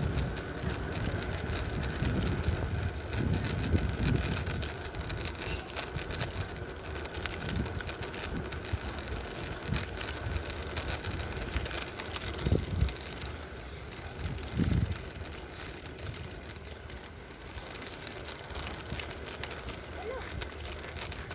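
Wind buffeting the microphone during a ride on a wet road, over steady road and tyre noise and a faint steady high whine. The gusts are heaviest in the first few seconds, and there are two short louder bumps about 12 and 15 seconds in.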